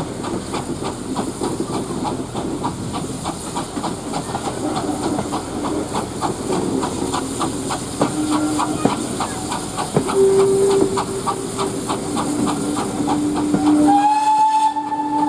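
Saddle-tank steam locomotive (Port Talbot Railway 0-6-0ST No. 813) working a train, heard from a coach, its exhaust beating quickly and evenly over the run of the wheels on the rails. In the second half a steam whistle sounds in held notes, growing louder toward the end.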